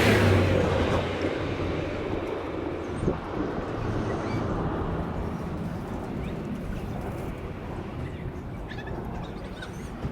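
Chrysler 300's 3.6-litre V6 running at a steady idle after its oil change. It is loudest in about the first second, then settles, with a few faint bird chirps.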